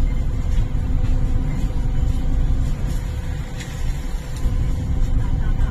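MTR IKK-Train (SP1900 electric multiple unit) running, heard from inside the carriage: a steady low rumble of wheels on track under a faint constant motor hum.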